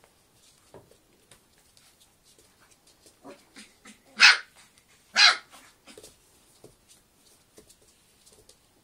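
Four-week-old Samoyed puppy giving two short, loud barks about a second apart, with fainter short sounds scattered around them.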